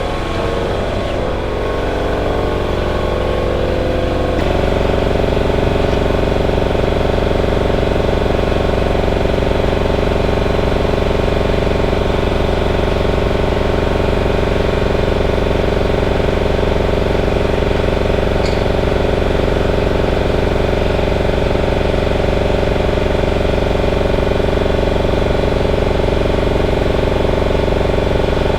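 A machine motor running steadily with a constant hum, stepping up to a louder, fuller hum about four seconds in and holding there.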